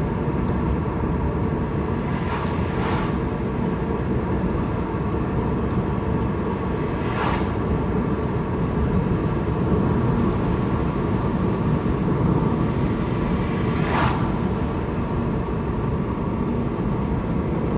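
Steady road and engine noise inside a moving car's cabin, with three short higher hisses about three, seven and fourteen seconds in.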